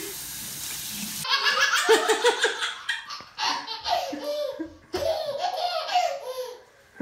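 A young child laughing hard in quick repeated bursts of belly laughter in a bathtub, coming in runs with short pauses. Before that, a steady hiss cuts off suddenly about a second in.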